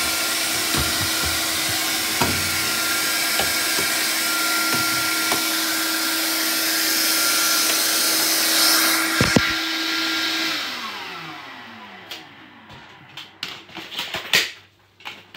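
Vax Air Cordless vacuum cleaner running steadily with a constant motor hum and a few knocks. About ten seconds in the motor winds down, falling in pitch, and several clicks and knocks follow.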